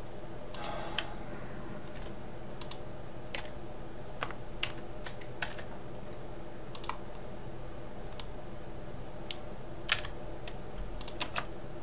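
Scattered, irregular clicks of computer keys and a mouse as shortcut keys are pressed and the pointer is dragged, over a steady low electrical hum.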